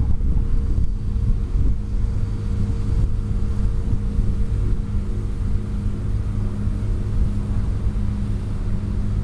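Steady low rumble with a constant droning hum, like a machine or engine running without change.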